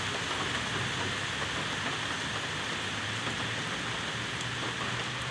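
Steady rain falling on wet pavement.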